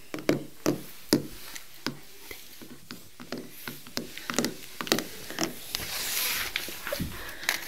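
Small plastic toy figure tapped along a wooden parquet floor in uneven clicks, about two or three a second, as if walking. Near the end comes a brushing rub of handling.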